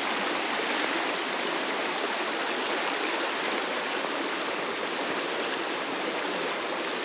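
McMichaels Creek's water rushing steadily over small rapids.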